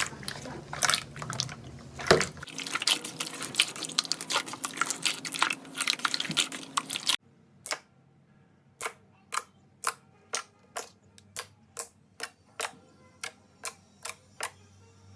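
Slime being handled: dense, crackling pops and clicks for about seven seconds. After an abrupt cut comes a regular series of sharp pops, about two a second.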